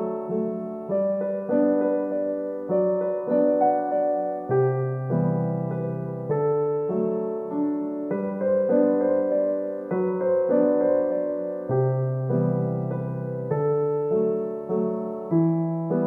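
Background music: gentle solo piano, notes and chords struck in a steady, unhurried rhythm, each ringing and fading before the next.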